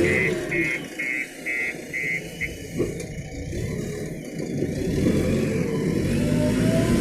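Diesel engine of a JCB 3DX backhoe loader running, with a reversing alarm beeping about twice a second until a couple of seconds in. The engine then revs up near the end.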